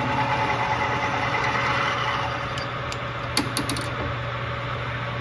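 Metal lathe running with a steady motor hum while a drill bit held in the tailstock is fed by hand into a nut spinning in the chuck. A few sharp clicks come about three and a half seconds in.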